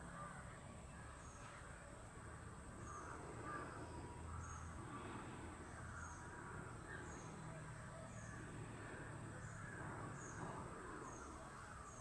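Birds calling in the open: scattered harsh, caw-like calls, with short high chirps repeating about once a second over a steady high hiss.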